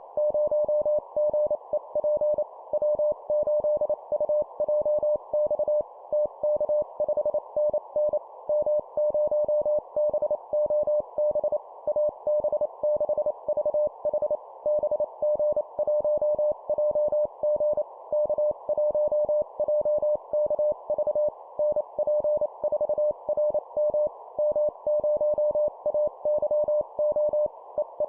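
Morse code (CW) call signs sent at 25 words per minute as a single tone of about 600 Hz, keyed on and off in quick dots and dashes, over a steady hiss.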